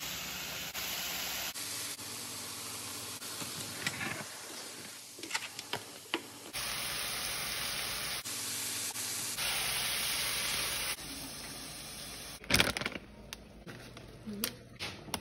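Vegetables sizzling in a skillet, heard in several short back-to-back clips whose level jumps at each cut. There are a few sharp knocks of a utensil against the pan about twelve seconds in.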